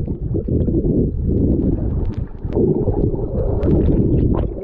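River water rushing around people wading upstream, picked up as a dense, uneven low rumble with scattered small splashes and knocks.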